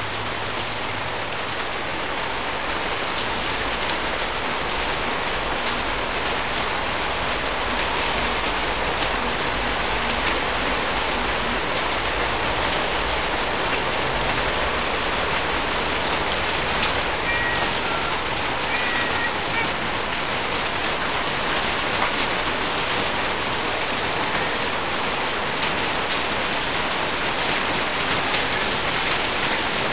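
Steady rain falling, a dense even hiss that grows slightly louder over the first few seconds.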